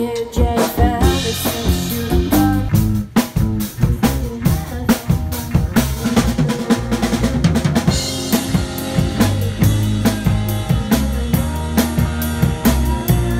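Live rock band playing an instrumental passage: a drum kit with snare, bass drum and cymbal hits drives a steady beat over bass guitar and electric guitar.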